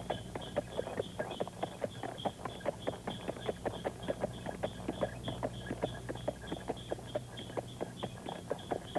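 Horse's hooves clip-clopping at a steady, even pace, about four hoofbeats a second, as a horse draws a carriage.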